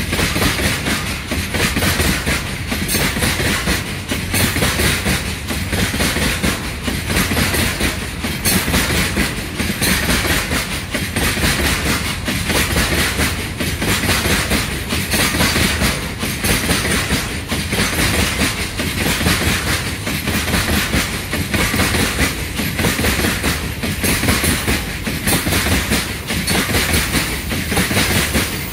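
Railway tank wagons of a goods train rolling past close by, their steel wheels clattering over the rail joints in a steady repeating clickety-clack that swells about once a second as each pair of bogies goes by.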